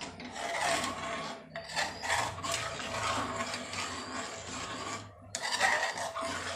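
A metal spoon stirring hot milk with cornflour just added in an aluminium pot, scraping against the bottom and sides in irregular strokes.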